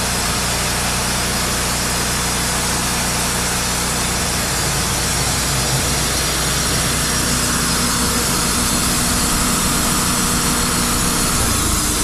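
Engine of a Wood-Mizer LT35 portable bandsaw mill running steadily, with a constant hiss over a low engine note. The note shifts slightly near the end.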